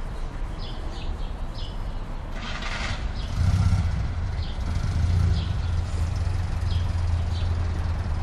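A motor vehicle engine running nearby with a steady low rumble that grows louder about three seconds in, while small birds chirp.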